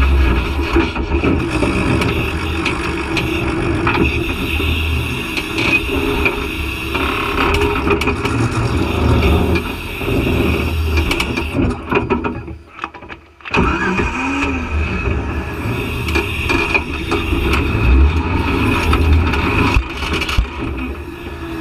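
Off-road vehicle engine running hard on a rocky hill climb, its level rising and falling with the throttle. About two-thirds of the way in the sound cuts out for about a second, then the engine picks up again.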